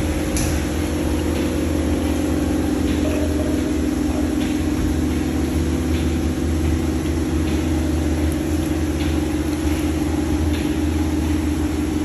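Dairy milking plant running its wash cycle: a steady motor and pump hum with a faint click about every second and a half.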